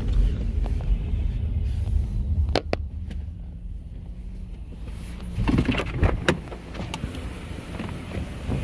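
Low rumble of a car running, heard from its cabin, with two sharp clicks about two and a half seconds in and a cluster of knocks and rustling around six seconds in.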